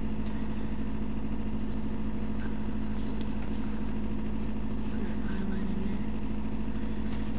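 Steady low hum from the recording setup, with a few faint scratches of a pencil drawing on paper.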